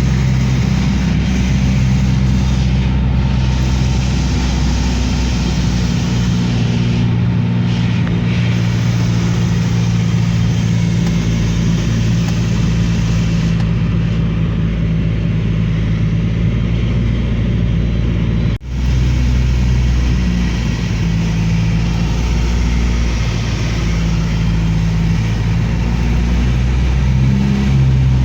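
Steady engine drone of a light aircraft heard from inside the cabin, with a brief dropout about two-thirds of the way through.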